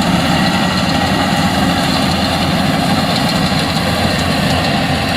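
Diesel engines of rice combine harvesters running steadily at working load while cutting rice, a continuous heavy drone.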